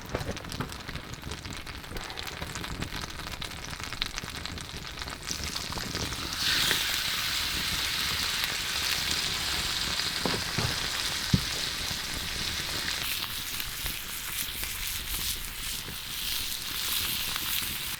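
Pike perch frying in a pan: a steady sizzle that grows louder about six seconds in and eases off again in the last few seconds.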